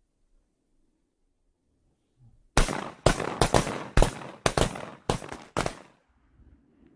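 A rapid volley of shotgun blasts at waterfowl: about ten sharp reports in some three and a half seconds, starting about two and a half seconds in, too many and too close together for a single gun.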